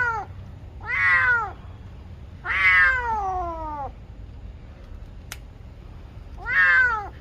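Injured black male cat crying out in pain from a spike wound through its belly: a series of drawn-out meows, each falling in pitch, the longest lasting about a second and a half. A single sharp click sounds about five seconds in.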